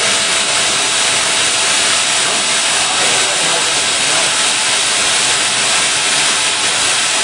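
Friction stir welding of an aluminium susceptor plate: the spinning tool traversing the joint line, heard as a loud, steady hiss.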